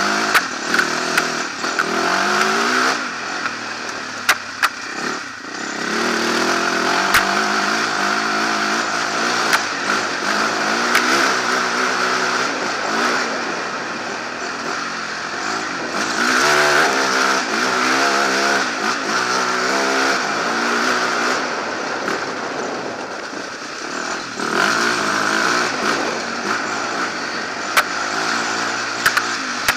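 Enduro motorcycle engine heard from an onboard camera on the bike, ridden hard: the pitch climbs and falls back again and again as it accelerates, shifts up and shuts off for corners. Occasional sharp knocks cut through it.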